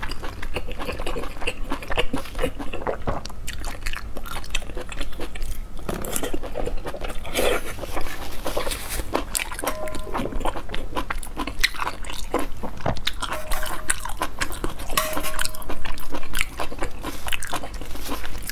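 Close-miked chewing of soft, chewy stewed intestines: a steady run of many small wet mouth clicks.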